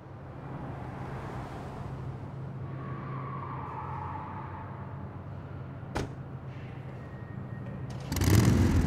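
An SUV's engine running steadily as it pulls in, with a car door shutting sharply about six seconds in. Near the end a much louder sound starts suddenly.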